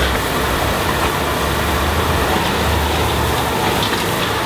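High-pressure gas wok burners under a street stir-fry stall, running with a steady low rumble and hiss.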